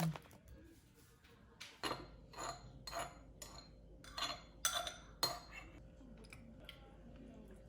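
Utensils clinking against dishware: about ten light, sharp clinks, roughly two a second, starting just under two seconds in and fading out after about six seconds.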